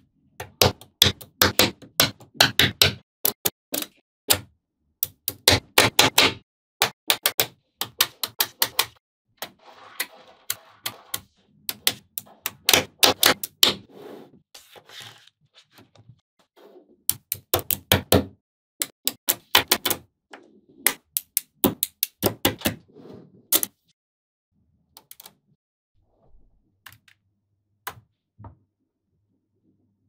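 Small magnetic balls clicking and snapping together in quick runs of sharp clicks as they are pieced into a structure. The clicks thin out to a few scattered ones for the last several seconds.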